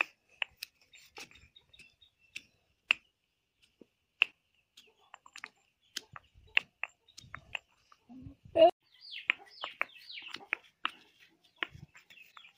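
A stone pestle knocking and grinding soaked, peeled almonds into a paste in a small stone mortar: scattered sharp clicks and knocks, with one heavier knock a little past halfway. Birds chirp in the background.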